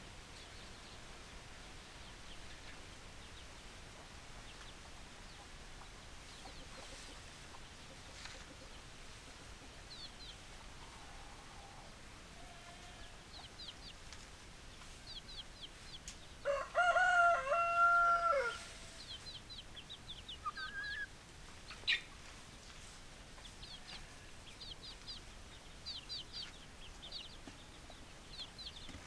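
A rooster crows once, a loud call about two seconds long midway through, with a few quieter clucking calls before and after it. Short, high chirps keep coming throughout.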